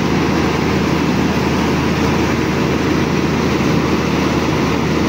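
Laverda 3650 combine harvester running steadily at close range while unloading rice grain through its auger: a loud, even machine noise with a steady low hum.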